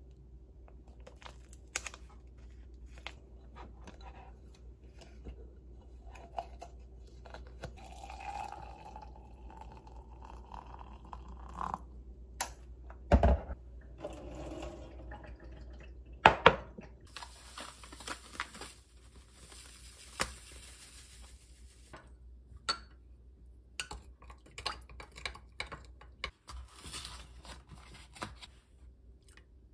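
Making tea in a glass measuring cup: the cup and a tea-bag packet are handled on a countertop, with a few sharp knocks of glass on the counter partway through. Water is poured with a hiss for a few seconds, and near the end a wooden spoon clinks as it stirs the tea in the glass.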